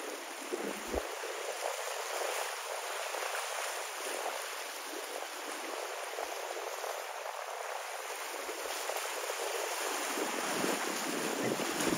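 Ocean water washing steadily, an even rushing with no distinct single waves. Wind buffets the microphone with low rumbles near the end.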